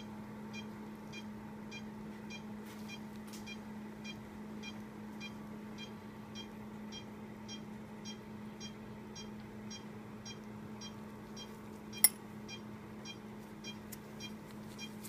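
Anesthesia patient monitor beeping steadily in time with the dog's pulse, about two and a half short high beeps a second, over a steady low hum of surgical equipment. A single sharp click comes about twelve seconds in.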